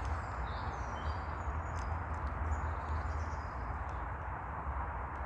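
Small birds chirping and calling faintly now and then over a steady low rumble.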